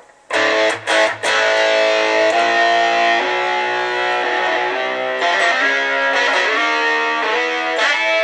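Electric guitar played through a DigiTech Whammy DT pitch shifter set to drop tune: a few quick strummed stabs, then held notes and chords that change pitch every second or two.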